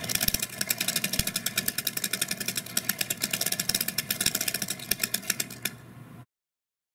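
Homemade split-flap display turned by hand, its flaps clicking over in a rapid run that slows and stops near the end as it settles on the last flap.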